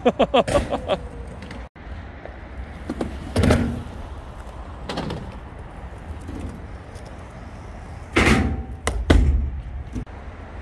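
Skateboard wheels rolling on concrete, with a steady rolling noise broken by sharp knocks and clacks of the board hitting the ground: a quick rattle of clicks at the start, single knocks a few seconds in, and a cluster of loud knocks near the end.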